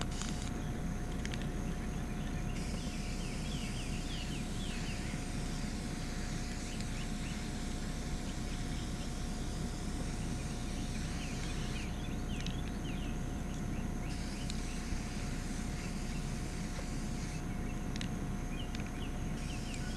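Aerosol can of traffic marking paint spraying in long hissing bursts with short pauses between them, as the numbers are sprayed through a stencil.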